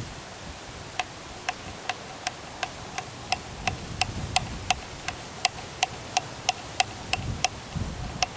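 A regular series of sharp ticks, starting about a second in and quickening slightly to about three a second.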